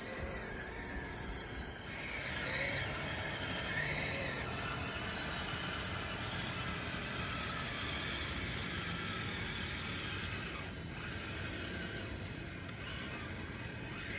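Electric drive motors of a Dxr2 RC bulldozer whining high and unsteadily over a steady hiss as it works on its wide tracks, with a short louder clunk about ten seconds in.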